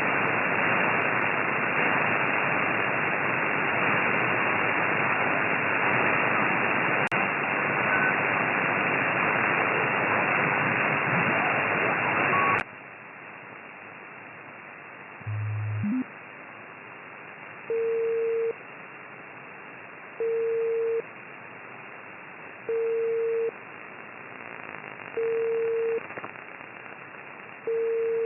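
Amateur radio transceiver receiving on the 6 m band, its speaker giving a loud, steady rush of interference noise: the noise problem being chased. About twelve seconds in the noise cuts off suddenly, leaving a quieter hiss, a brief low rising tone, and then a steady tone beeping about every two and a half seconds.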